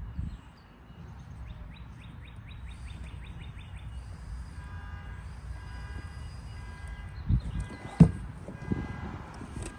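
Handling of plastic trimmer parts as a clamp is screwed on by hand: a quick run of small clicks for a couple of seconds, then a few knocks, the sharpest about eight seconds in, over a low rumbling background.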